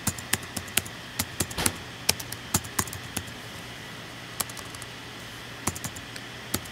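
Keys being typed on a computer keyboard: a quick run of keystrokes over the first three seconds or so, then a few scattered taps later on, over a faint steady hum.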